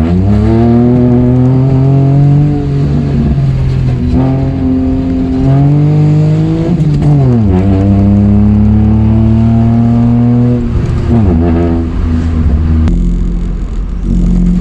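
Toyota Aygo engine pulling through the gears: revs climb, drop at each of about three gear changes, and settle to a steady lower drone near the end. The car has a solid gearbox mount fitted, so a lot of engine vibration goes through the car.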